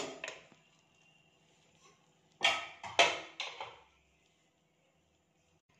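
Aluminium pressure cooker lid clanking as it is lifted off the cooker: a sharp metal clank at the start, then three more clanks about half a second apart near the middle.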